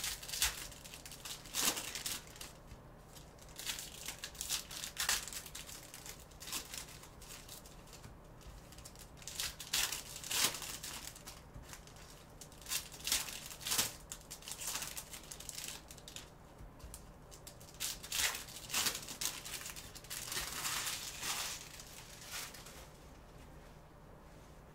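Foil wrappers of Select basketball trading-card packs crinkling and tearing in irregular bursts as gloved hands rip the packs open.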